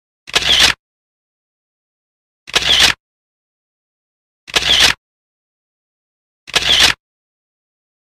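Camera shutter sound of a single-lens reflex camera firing four times, about two seconds apart, each a short double click.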